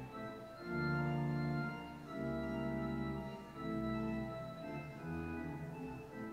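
Church organ playing a slow series of sustained chords over a low bass, each chord held a little over a second before moving to the next.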